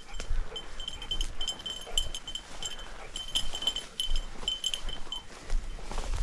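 A bird dog's collar bell jingling in quick irregular rings as the dog moves through cover, falling silent for a moment near the end; the ringing tells the hunter the dog is still moving and not on point. Brush and ferns swish against the walking hunter underneath.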